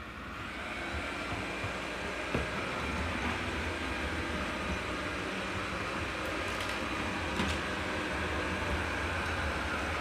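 Proscenic 850T robot vacuum running, fitted with its water tank and mopping pad: a steady whirring hum that grows louder over the first second or so, with two light knocks.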